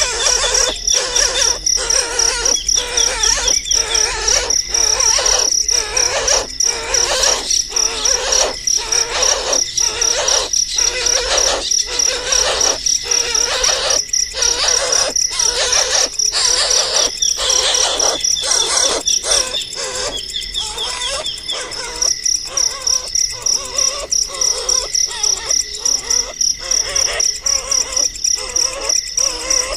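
A high, rapidly pulsing cricket-like trill mixed with repeated bird chirps, the whole sound dipping in a steady rhythm of about two beats a second.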